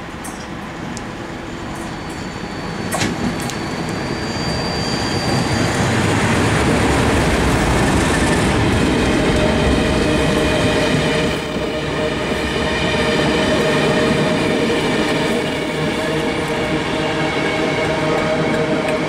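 Class 37 diesel-electric locomotive's English Electric V12 diesel engine, growing louder as it approaches and passes beneath with a heavy rumble. The train's coaches follow, rolling past with wheel noise and a steady whine of several tones.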